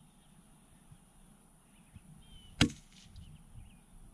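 A single shot from a Vudoo V-22 bolt-action .22 Long Rifle rifle: one sharp crack about two and a half seconds in.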